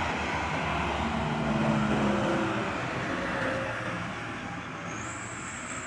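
Heavy truck's engine running as it passes, slowly growing fainter as it moves away.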